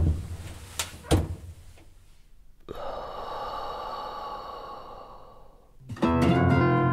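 Radio-drama sound effects marking a scene change: two sharp clicks about a second in, then a soft hissing swell lasting about three seconds. Music with sustained pitched tones comes in about six seconds in.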